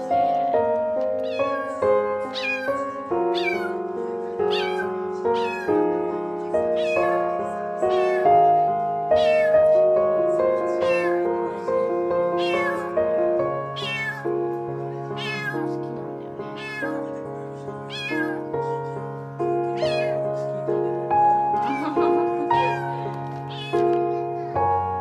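A kitten meowing over and over, short high-pitched calls that fall in pitch, about one a second, over background music.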